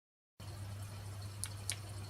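Dead silence, then a low steady hum with faint hiss cuts in, and two small clicks come about a quarter second apart just past the middle.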